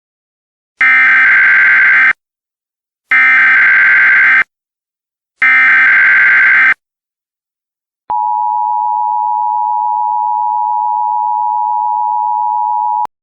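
Emergency Alert System header: three short bursts of warbling digital data tones, each about a second long, then the steady two-tone EAS attention signal for about five seconds, cutting off abruptly. This sequence marks the start of an emergency alert broadcast.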